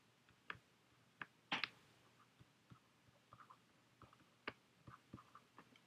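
Faint, scattered taps and clicks of a stylus writing on a tablet screen, one a little louder about a second and a half in.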